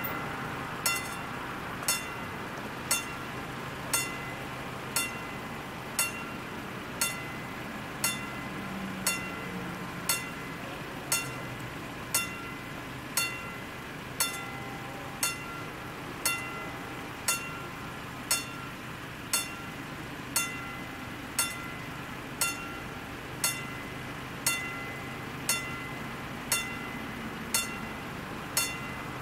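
Level-crossing warning bell striking about once a second, each stroke a short ringing ding. It signals that the crossing is closed for an approaching train.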